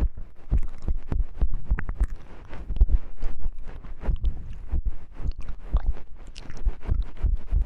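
Close-miked ASMR trigger sounds: a fast, irregular run of small clicks and soft low thumps.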